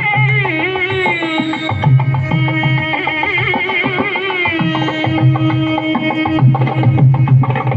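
Music playing: a melody of held and sliding notes over a regular drum beat.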